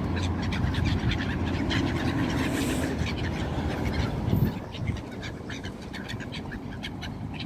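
A large flock of gulls calling, many short cries overlapping. A low rumble underneath stops about four and a half seconds in.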